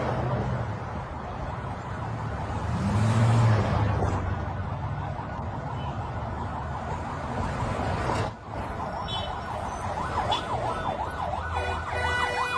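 Vehicles of a convoy driving past on a street, with engines and tyres loudest about three seconds in. About ten seconds in a siren starts, a fast yelp rising and falling several times a second.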